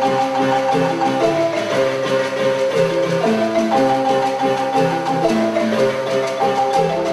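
Music: a tune of clear pitched notes, each held about half a second, over a bass line that steps between notes.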